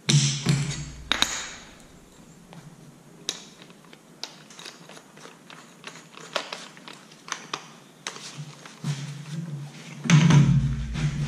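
Metal clicks, knocks and small clinks of an angle grinder's disc and lock nut being handled and fitted by hand, with no motor running. A louder low hum comes in near the end.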